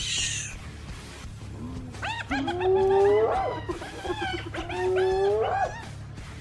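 Designed creature vocalization made as a sound effect: two long, pitched animal-like calls, each bending upward in pitch near its end, the second following the first after a short pause.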